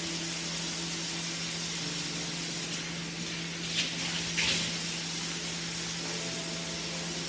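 Two short spritzes from a spray bottle of cleaner, about half a second apart, over a steady low hum and hiss.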